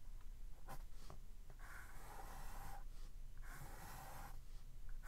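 Pencil scratching on a book page while underlining lines of text: a short stroke, then two longer strokes of about a second each, faint.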